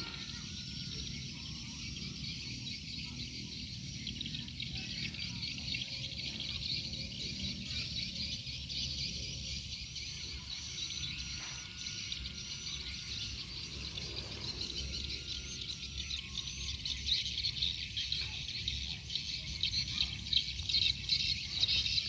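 Dense, high-pitched twittering of a large flock of swiftlets hawking for insects over the rice fields. It grows louder and more uneven over the last few seconds.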